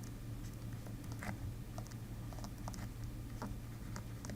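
Faint, irregular light clicks and taps over a steady low hum.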